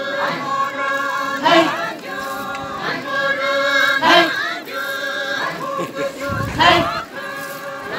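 A group of dancers chanting together in a sustained, many-voiced chant, with a loud rising shout breaking in several times.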